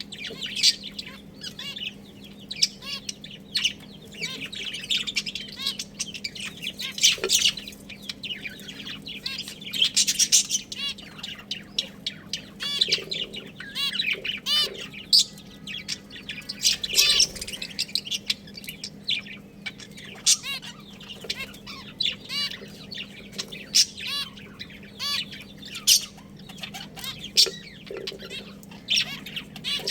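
Budgerigars chirping, many short high chirps following one another without pause, over a faint steady low hum.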